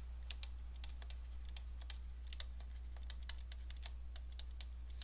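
Faint, irregular light clicks and taps of a stylus on a pen tablet as words are handwritten, several a second, over a steady low hum.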